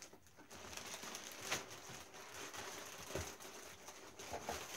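Plastic packaging crinkling and rustling as wrapped items are handled and pulled out of a cardboard box, with a sharper knock about a second and a half in and another around three seconds in.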